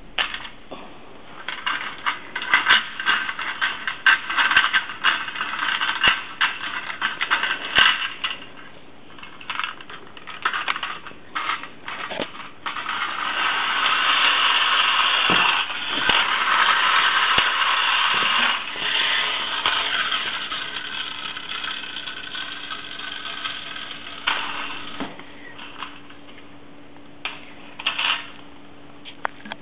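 Mettoy 1930s tin wind-up airplane's clockwork motor running, the tin toy clicking and rattling as it goes over a tile floor. Midway it settles into a steady whirring buzz that fades out over several seconds as the spring runs down, leaving a few separate clicks near the end.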